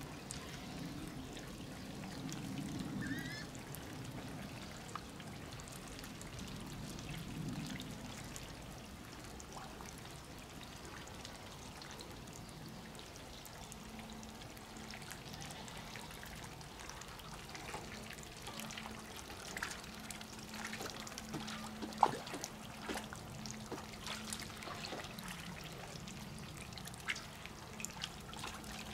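Faint steady trickle of running water, with scattered light clicks and one sharper tick about 22 seconds in.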